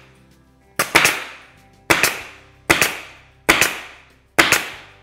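Pneumatic stapler firing staples through a wooden cabinet top into the cabinet sides, five shots about one a second. Each shot is a sharp double crack that trails off quickly.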